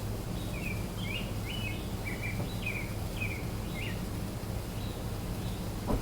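A songbird singing a quick run of short chirps over a steady low background hum, with a single light knock near the end.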